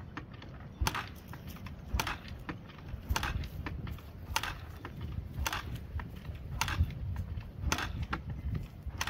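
Yamaha TT-R125's four-stroke single being kickstarted with the choke on: about eight kicks roughly a second apart, each a sharp clack of the kick lever and the engine turning over without catching.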